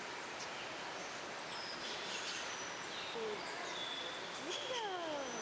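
Birds calling over steady background noise: short high whistles, then a long falling whistle near the end.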